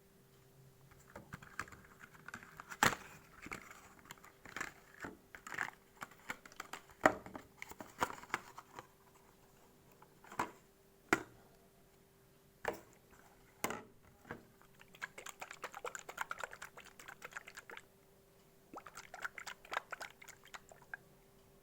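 Cough syrup packaging being handled and opened by hand: irregular sharp taps and clicks mixed with small crackling, in clusters separated by short pauses.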